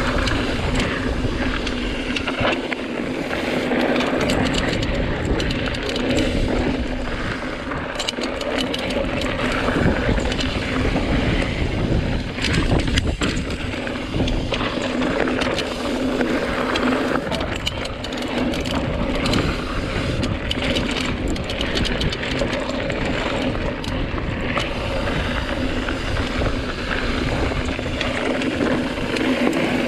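Mountain bike rolling fast over a dirt trail: a steady rumble of tyres and wind on the camera microphone, with scattered clicks and rattles from the bike.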